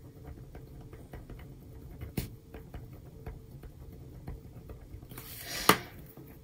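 Pen writing on paper: faint scratches and ticks of the pen tip. Near the end comes a brief rustle and a sharp tap, the loudest sound here.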